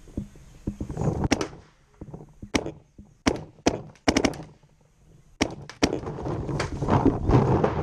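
Paintball markers firing: sharp cracks, singly and in quick runs of two or three, with a steady rough noise under the shots over the last couple of seconds.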